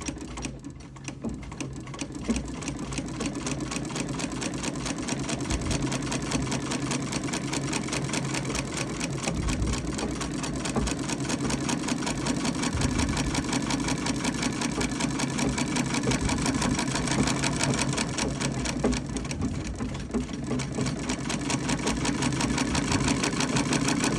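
Davis vertical feed treadle sewing machine from around 1919 stitching through layers of denim: a fast, even clatter of needle and feed that builds up at the start. It eases briefly late on, where the old, dried-out treadle belt slips on the wheel.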